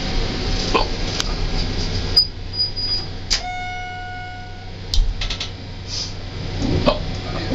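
Schindler elevator coming to a stop: its steady running noise drops away about two seconds in, then a single electronic chime sounds for just over a second, followed by a few clicks from the car's machinery.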